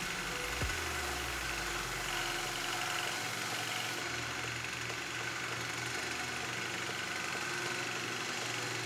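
Belt sander with a linen belt running steadily as a golf club ferrule is turned against it and sanded down flush with the hosel.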